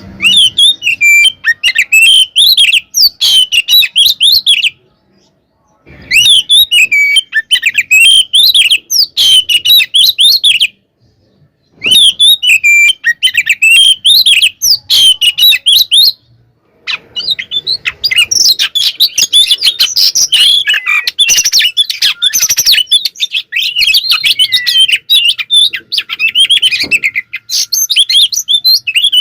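Oriental magpie-robin singing loud, fast whistled phrases: three near-identical phrases of about four to five seconds each, with short pauses between them, then a long unbroken stretch of rapid, dense chattering song.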